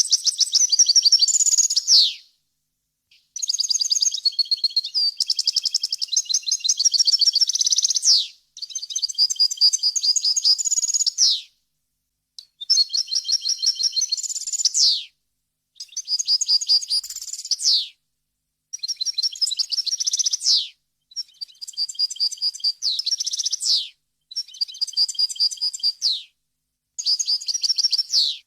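European goldfinch singing: a run of song phrases, each a few seconds of fast, high twittering notes, many ending in a falling slur, separated by short silent gaps.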